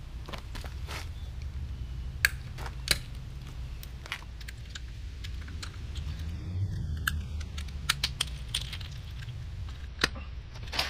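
Scattered small sharp clicks and clinks of metal as the caps are pried off a car wheel's lug bolts with a small cap-puller tool and set down on concrete, over a steady low rumble.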